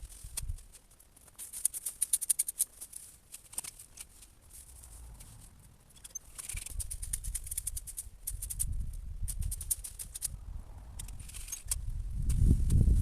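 Crackling and rustling of dry twigs and cut brush, in bursts of crisp clicks, over a low rumble of wind on the microphone that grows near the end.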